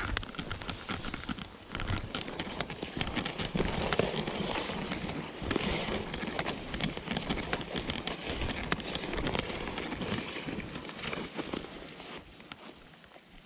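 Dry tall weeds and grass stalks crackling and rustling against legs and clothing in a dense run of brisk footsteps through the cover. It eases off near the end.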